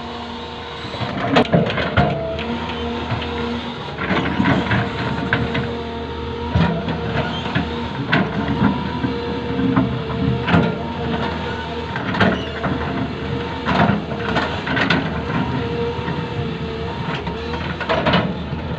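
Hydraulic excavator running steadily while it digs and spreads fill soil, with repeated knocks and clanks from the working machine at uneven intervals.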